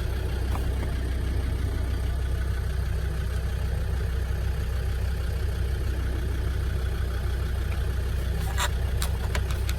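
A vehicle engine idling steadily with a low drone. About eight and a half seconds in come a few sharp clicks, likely the seatbelt height adjuster being worked by hand.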